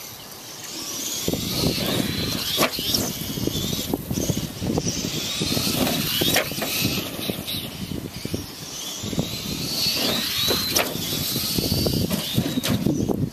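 Radio-controlled Clod Buster monster trucks racing on grass: their electric motors whine, rising and falling in pitch as the trucks speed up and slow down, over a low rumble of tyres and chassis. Several sharp knocks are spread through it.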